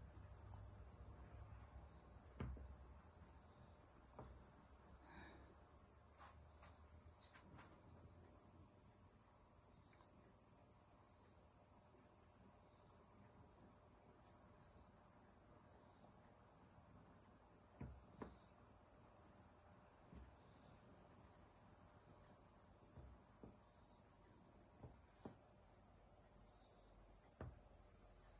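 A steady, high-pitched chorus of insects, with a few faint clicks scattered through it.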